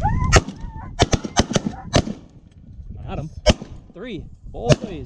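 Volley of shotgun fire from several waterfowl hunters shooting at a passing flock of geese: about seven shots, four in quick succession in the first two seconds, then single shots near the middle and near the end.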